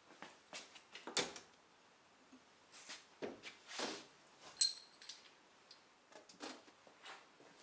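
Scattered knocks, clicks and rattles of handling at a sheet-metal sandblast cabinet's side door and latch, with a sharp metallic clink about four and a half seconds in.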